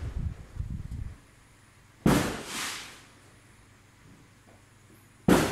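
Firecrackers going off: one sharp bang about two seconds in and another near the end, each followed by a rolling echo that dies away.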